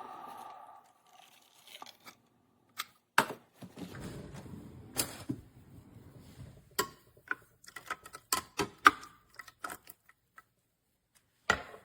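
A steady humming tone that fades out within the first second, then a string of irregular sharp clicks and knocks, like small hard parts being handled and set down.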